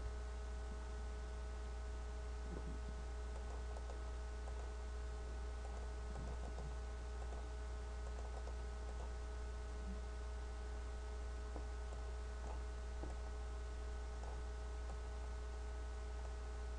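Steady low electrical mains hum in the recording, with faint scattered clicks from a computer keyboard and mouse.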